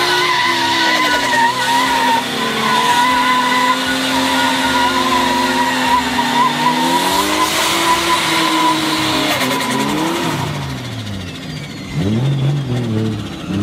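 Two drift cars, a black Subaru Impreza and a white drift car, sliding sideways in tandem: tyres squealing steadily as the engines rev up and down. About ten seconds in the squeal fades, leaving only the engines revving.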